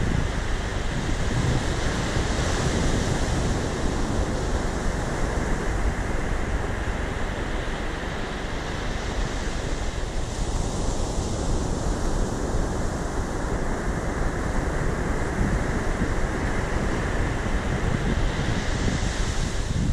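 Ocean surf breaking and washing up a sand beach, its hiss swelling roughly every eight seconds as each wave comes in. Wind rumbles on the microphone.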